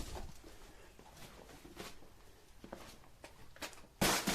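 Rummaging through an empty cardboard shipping box: scattered soft rustles and light knocks, with a louder scraping rustle near the end.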